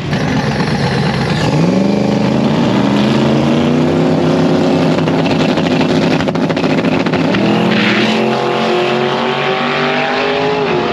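Race car engine accelerating hard, its pitch climbing in two long rises, with a brief drop near the end.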